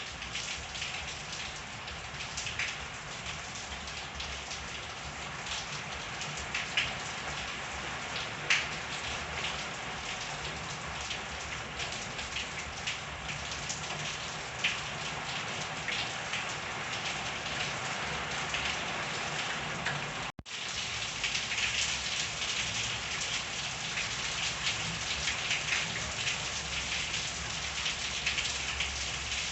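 Steady rain falling in a backyard, with a continuous hiss of rain and now and then a sharper, louder drop striking a surface. The sound cuts out for an instant about two-thirds of the way through, then resumes a little louder.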